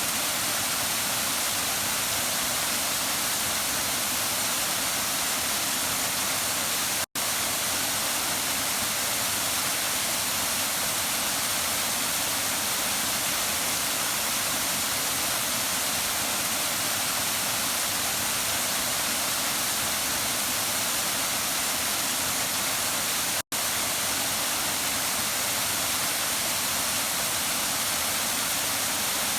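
Waterfall rushing in a steady, even hiss of falling water, cut by two split-second dropouts about seven and twenty-three seconds in.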